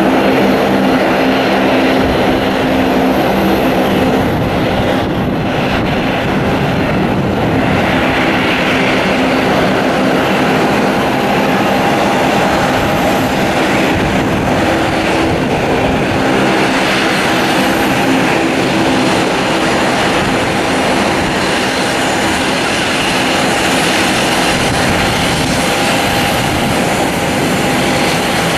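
Bombardier Dash 8 Q400 turboprop taxiing close by, its two engines and six-blade propellers running at taxi power: a steady drone with several held low tones.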